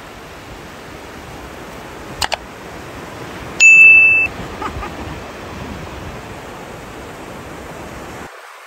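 Edited-in sound effects of a YouTube subscribe animation: a quick double click about two seconds in, then a loud notification ding, one steady high tone of under a second that stops sharply. Underneath is a steady hiss of surf.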